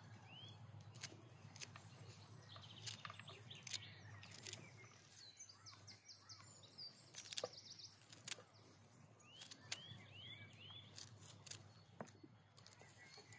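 Fresh green stems snapping and leaves being stripped by hand, a dozen or so crisp snaps at irregular intervals, the loudest about seven seconds in. Small birds call in the background: a rapid high trill around the middle and a quick run of repeated rising-and-falling chirps near the end.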